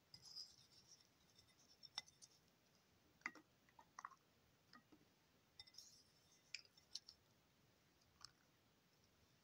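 Near silence broken by faint, scattered light clicks and ticks, with a soft high rustle near the start and again around six seconds in: pinches of chopped green onion being sprinkled by hand onto lobster tails on a ceramic plate.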